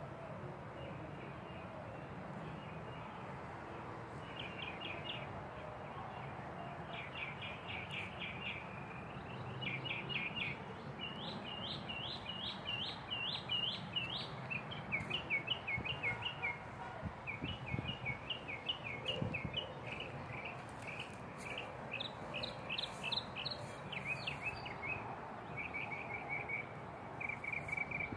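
A songbird singing in phrases of quick repeated chirps, starting a few seconds in, over a steady low outdoor background.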